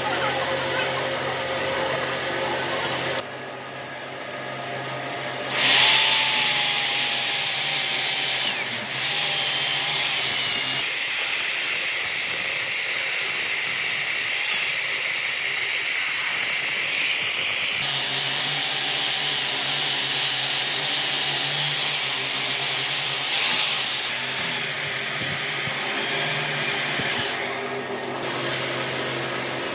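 Electric hand drill with a wide cylindrical cutter bit grinding into a wooden stump and throwing up chips. It runs in long stretches, starting about six seconds in, with a quieter spell in the middle.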